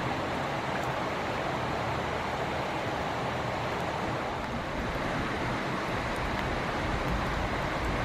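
Steady, even rushing background noise with no bird calls or distinct knocks in it.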